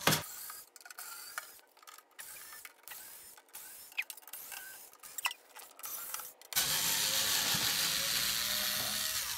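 A ratcheting screwdriver clicking irregularly as screws are backed out of a microwave oven's sheet-metal casing. About two-thirds of the way through, a steady, louder rushing noise takes over.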